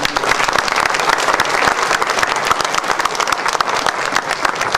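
An audience applauding: many people clapping at once, a dense, steady patter of claps.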